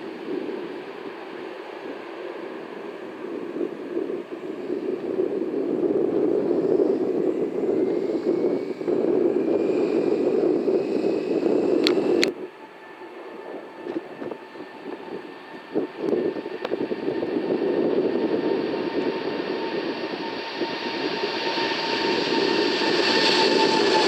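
Jet airliner engines passing close: a rumble that builds for about half the time, then cuts off suddenly. After the break another jet is heard, its engine whine growing steadily louder near the end.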